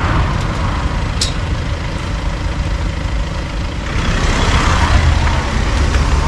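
Car engine running as the car pulls slowly through the gate and past, growing louder about four seconds in. A brief high squeak comes about a second in.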